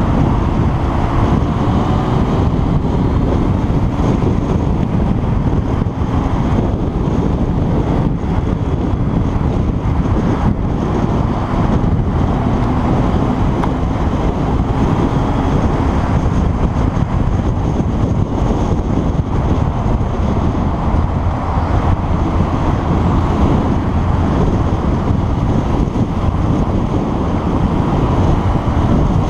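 Steady wind rush over the camera microphone on a moving motorcycle, with the bike's engine running underneath.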